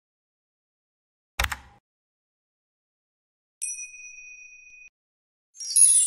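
Sound effects of an animated subscribe-button graphic: a single sharp click about a second and a half in, a clear bell-like notification ding a couple of seconds later, then a louder glittering chime with falling sparkly sweeps starting near the end.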